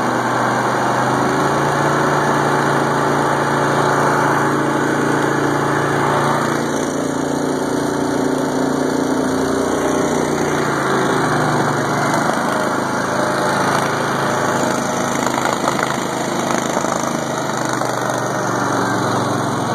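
Argo amphibious ATV's small engine running steadily as the machine drives through water, with water churning and splashing at the hull. The engine note dips and comes back up about ten to twelve seconds in.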